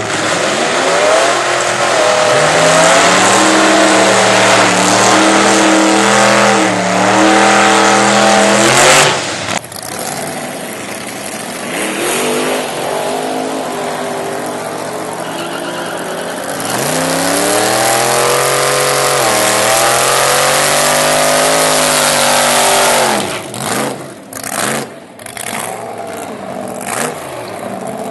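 8-71 supercharged small-block Chevy V8 in a Ford Ranger drag truck running hard at high revs. It holds high for several seconds, drops off, then revs up and back down again, with a few sharp cracks near the end.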